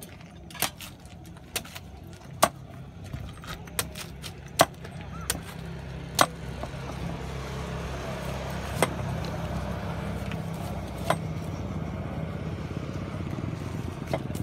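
Steady low rumble that grows louder from about eight seconds in, with sharp clicks scattered through the first half.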